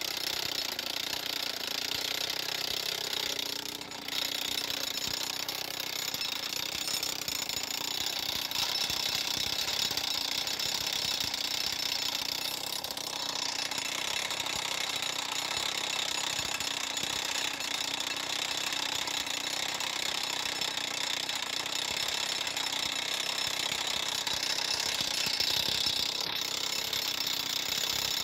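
Pionjar 120 petrol rock drill hammering its drill steel into stone. Its two-stroke engine runs on with rapid, steady impacts, with a brief dip about four seconds in.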